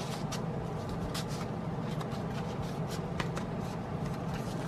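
Paper and plastic album contents being handled: a scatter of soft rustles, scrapes and small clicks over a steady low hum.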